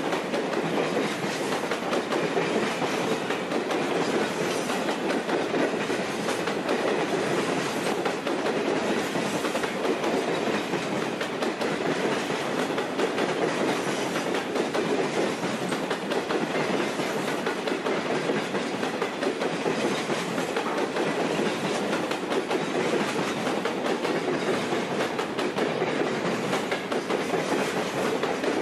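Freight cars rolling steadily past on the rails: a continuous rumble and clatter of wheels.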